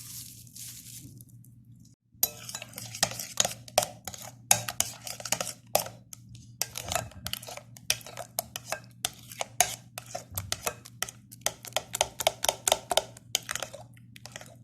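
A spoon scraping and knocking against a bowl in a quick, irregular run of clinks and scrapes, as thick lemon cream is scooped out of it.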